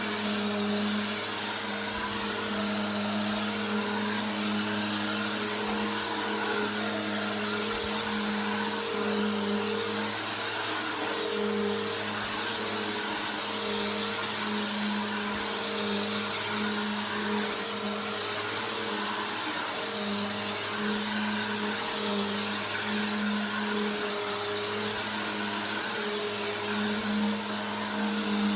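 Bissell PowerForce Helix upright vacuum cleaner running steadily, a constant motor hum over the rush of air whose tone wavers slightly now and then.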